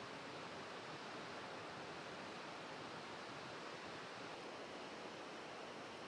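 A faint, steady rushing hiss that stays even throughout, with no distinct events.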